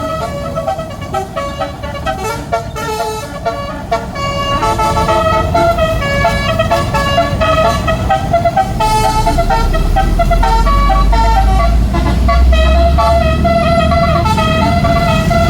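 Basuri multi-tone musical air horn on a tour bus playing a telolet melody, its notes changing quickly one after another. A low engine rumble runs underneath and grows louder from about nine seconds in.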